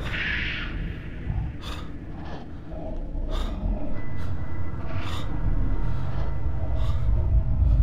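A man's heavy, gasping breaths as he runs, over a low rumbling drone that grows louder toward the end.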